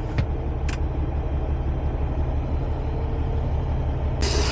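Semi-truck diesel engine idling with a steady low rumble, two light clicks in the first second, and a steady hiss that starts suddenly near the end.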